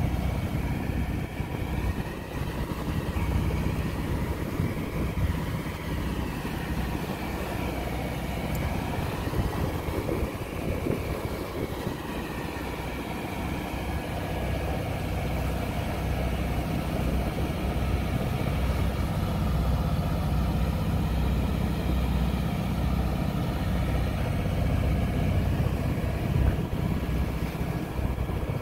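A sailing ketch's inboard engine running steadily while the boat is under way, with water rushing along the hull.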